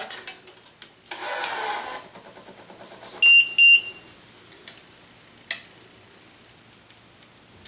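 Wise 2086 electronic tension head pulling a tennis racquet main string to tension, a short noisy pull of about a second, then two short high beeps signalling that reference tension is reached. Two sharp clicks follow.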